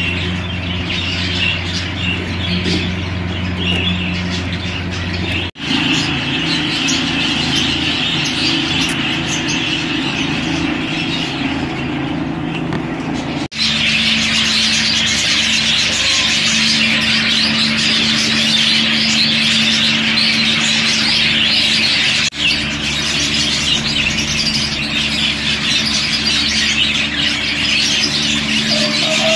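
Many budgerigars chattering and squawking together in a continuous dense din, over a steady low hum. The sound drops out for a moment three times.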